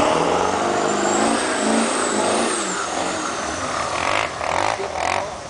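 Lifted pickup truck's engine revving hard as it pushes through deep slush, its pitch climbing over the first couple of seconds and then dropping away. A high whine rises and falls above the engine.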